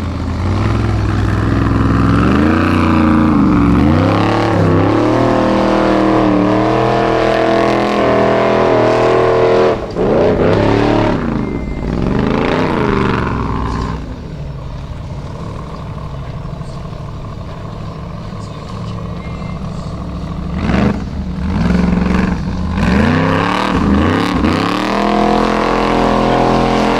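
Unlimited-class Formula Offroad buggy's engine revving hard in repeated rising and falling surges. About halfway through it settles to a lower, steadier note for several seconds, then rises again with a sharp burst and more surging revs near the end.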